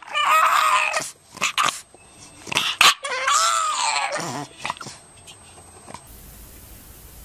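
English bulldog puppy giving two drawn-out whining calls, each about a second long, rising then falling in pitch, with a few short knocks between them.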